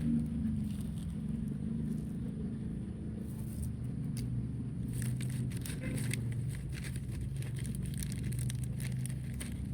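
Steady low hum of a running motor vehicle engine, with faint scattered clicks over it.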